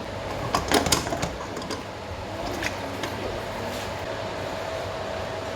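Kitchen clatter: a quick cluster of knocks from cookware or utensils being handled about half a second to a second and a half in, then a few lighter clicks, over a steady background hum.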